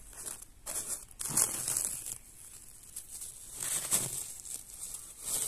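Dry, papery crinkling and rustling in several short bursts as a wasp nest's paper comb inside an old wooden beehive is handled.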